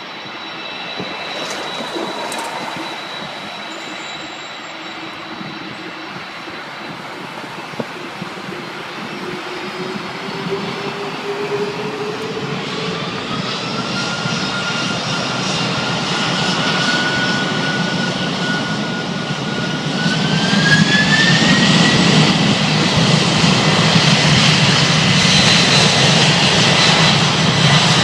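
Boeing 747 jet engines spooling up for takeoff: a whine that rises in pitch in two stages over a growing rumble. The sound gets louder throughout and jumps up about two-thirds of the way through as takeoff thrust builds.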